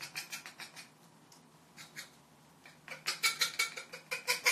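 A paring knife scraping meat down a chicken wing bone in quick, repeated strokes, making a grating scratch. The strokes stop for about two seconds after the first second and then start again.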